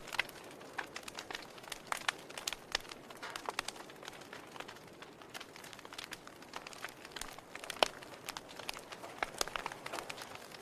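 Wood fire burning in a fireplace, crackling with many irregular snaps and pops over a soft hiss. One louder pop comes about eight seconds in.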